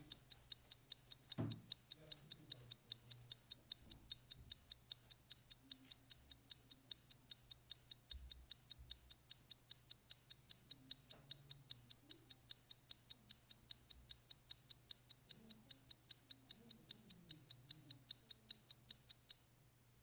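Clock-like ticking, perfectly even at about four ticks a second, that cuts off suddenly near the end. A faint low hum lies under it, with a single soft thump about a second and a half in.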